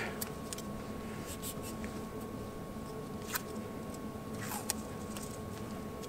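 Faint, steady background hum with a thin constant tone, and a couple of brief soft clicks from an insulated cable being handled and straightened.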